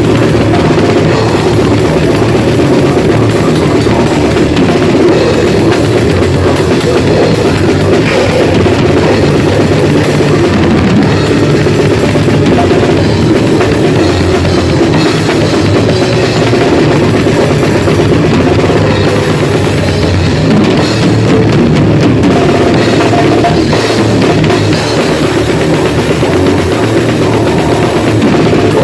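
Grindcore band playing at full volume: the drum kit and bass drum pound fast under a dense, unbroken wall of band noise, with no pauses.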